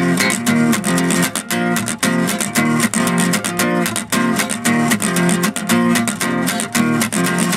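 Acoustic guitar strummed in a steady, even rhythm of chords.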